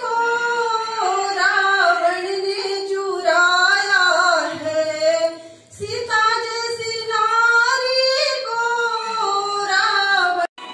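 A woman singing solo, one voice carrying a flowing melody, with a short pause for breath about halfway through. The singing cuts off abruptly just before the end.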